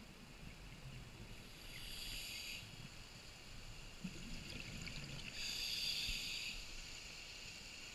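Scuba regulator breathing heard underwater: two hissing inhalations through the demand valve, about two seconds and about five and a half seconds in, with a low bubbling of exhaled air between them.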